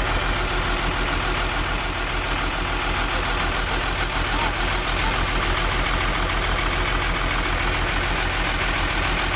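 Six-cylinder diesel engine of a Volvo EW145B wheeled excavator running steadily, misfiring; the mechanics go after the misfire by pulling its injectors.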